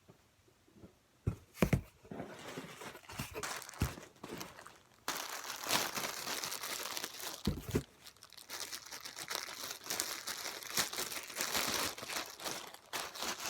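Packaging being crinkled and handled while an order is unpacked, with a few soft knocks early on and again past the middle. The crinkling grows dense and continuous in the second half.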